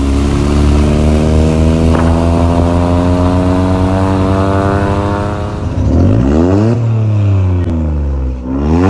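Modified Volkswagen Polo's engine through a custom exhaust, loud. It is held at high revs for about six seconds with the pitch slowly creeping up, then drops and revs up sharply, and dips and climbs again near the end.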